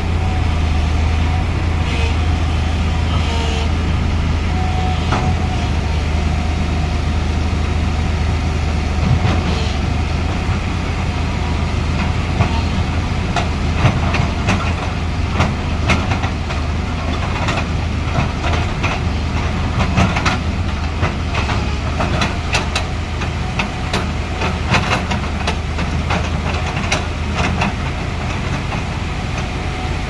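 JCB crawler excavator's diesel engine running steadily with a low hum. Through the second half, rapid metallic clanking and clicking from the machine's steel tracks and undercarriage as it moves.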